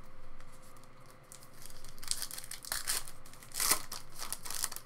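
Foil wrapper of a baseball card pack being torn open and crinkled by hand: faint rustling at first, then a run of sharp crinkling and tearing bursts from about halfway through, loudest near the end.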